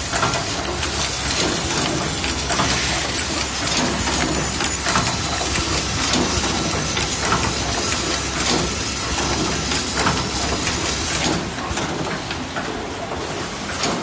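Automated power-cord plug assembly and crimping machine running: a steady mechanical din with air hissing and frequent irregular clacks from its pneumatic cylinders and tooling. The hiss eases somewhat near the end.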